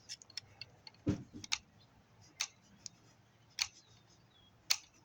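Irregular short, sharp clicks and scrapes of a tool scratching the windings of a small dishwasher electric motor, done to check whether the windings are copper.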